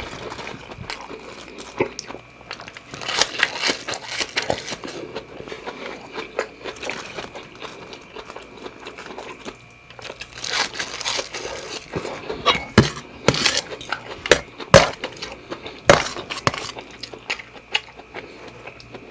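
Close-miked eating sounds: chewing and crunching through a mouthful of seafood fried rice with shrimp and squid, with a few sharp clicks after the middle.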